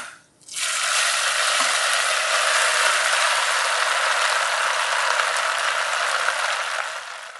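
Hot ghee tempering in a steel kadai sizzling loudly as steamed poha is tipped in. A steady crackling hiss starts suddenly about half a second in and fades near the end.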